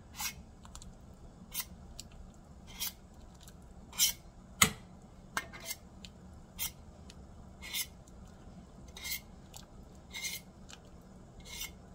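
A table knife scraping nokedli (spätzle) batter off the edge of a stainless steel pot lid into boiling water, metal on metal, in short strokes about one a second. One stroke about halfway through lands as a louder, sharper knock.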